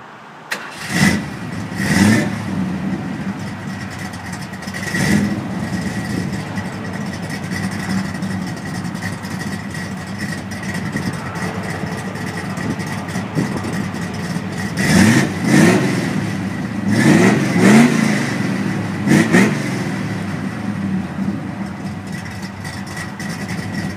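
An older Ford car engine idling steadily, blipped in short revs that rise and fall back: twice in the first couple of seconds, once around five seconds in, then four or five times between about fifteen and twenty seconds.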